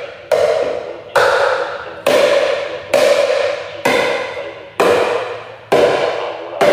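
Evenly spaced knocks, a little more than one a second, each a sharp strike that rings on with a pitched tone and fades before the next.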